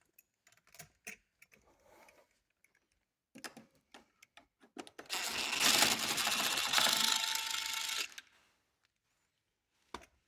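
Light clicks and knocks of hand tools being handled, then about three seconds of rapid, steady mechanical rattling from a tool at work on the motorcycle's rear end.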